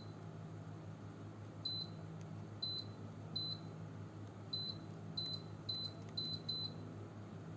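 Split-unit air conditioner running with a steady low hum, its fan and compressor raising the room's background noise to about 40 dBA. Over it come about eight short, high electronic beeps at uneven intervals.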